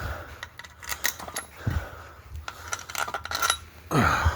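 Loose metal parts and tools clinking and scraping in an engine bay, a run of sharp clicks that is loudest about four seconds in.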